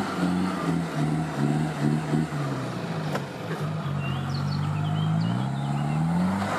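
Engine of an off-road 4x4 running under load, its revs rising and falling, then climbing steadily near the end.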